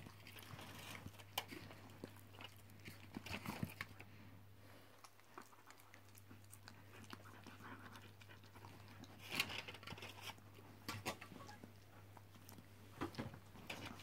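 A greyhound crunching and chewing pieces of custard tart taken from the hand, in scattered faint bursts of crunching with quieter pauses between.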